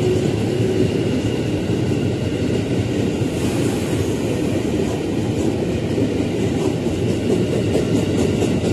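Jakarta KRL Commuter Line electric multiple-unit train passing close by, a steady rumble of wheels on rail with faint clicking over the rail joints in the last few seconds.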